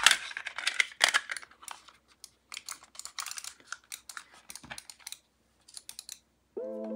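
Plastic shell of a Logitech MX Anywhere 3 mouse being pressed together and handled: a quick, irregular run of small plastic clicks, snaps and rattles. Music comes in near the end.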